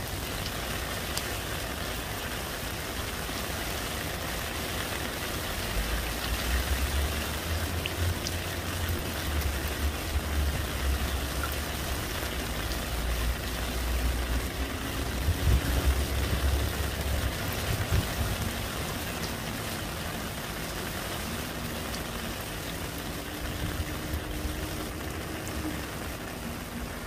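Rain falling into a puddle on pavement: a steady patter of drops splashing on water. A low rumble runs underneath from about six seconds in to about seventeen seconds in.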